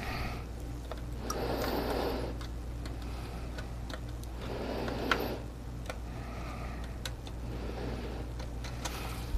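Airbrush spraying paint in three bursts of about a second each, roughly three seconds apart, over a steady low hum. Light clicks and knocks fall between the bursts.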